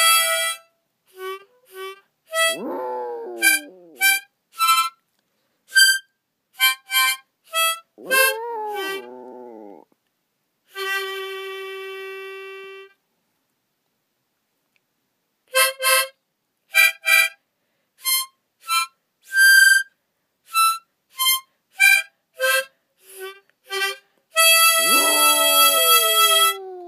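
A harmonica played in short notes, with a long held note and a gap partway through and a held chord near the end, while a chihuahua howls along three times, each howl sliding down in pitch.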